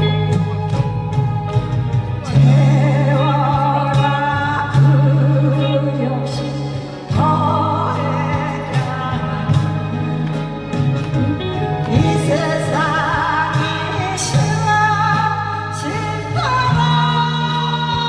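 A song sung over a backing track, a wavering vocal melody above a steady bass line.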